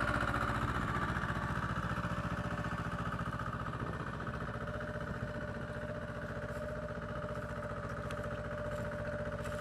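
Small tractor engine running steadily under load while pulling a plow through the soil, with an even, unbroken drone.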